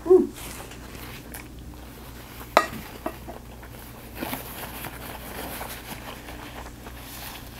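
Close-up eating sounds: a loud wet mouth sound as a wooden spoonful of stir-fried kimchi and rice is taken, then soft chewing. About two and a half seconds in, a sharp click as the wooden spoon is set down on the plate. After that, paper napkin rustling as the mouth is wiped.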